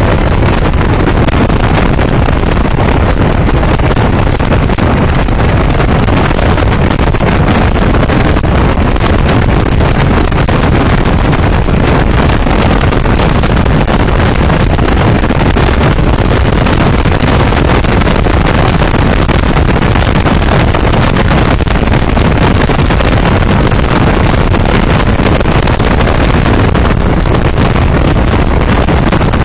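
Steady, loud wind rush and low road rumble on a microphone mounted outside a car at highway speed.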